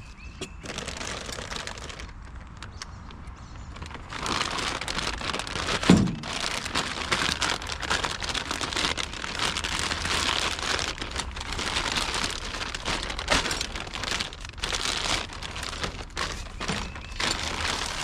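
Packaging crinkling and rustling, with many small clicks and cracks, as a new fuel pump sending unit is unwrapped; it gets much louder about four seconds in, with a single knock about six seconds in.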